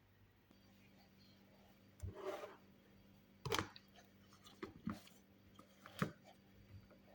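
Blender jug and lid being handled and fitted: a brief rubbing scrape, then a few separate knocks and clicks, over a faint steady hum.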